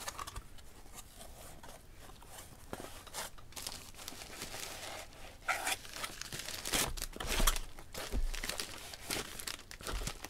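Paper packing crinkling and tearing as a box is unpacked by hand, in irregular rustles that grow louder and busier about halfway through.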